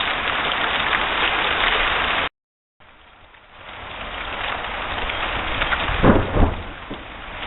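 Heavy rain hissing steadily, broken by a brief dropout about two seconds in, then building back up; about six seconds in, a loud clap and rumble of thunder.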